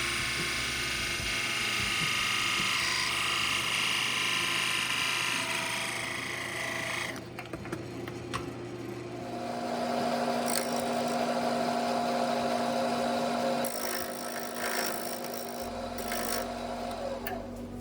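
Wood lathe running while the spinning wood block is worked, a scraping rub over the motor hum. About seven seconds in the scraping stops, leaving a steadier hum with a clear tone.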